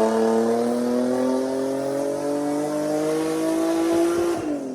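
Turbocharged Infiniti G35's 3.5-litre V6 engine at full throttle under load, its revs climbing steadily, then dropping as the throttle is lifted near the end.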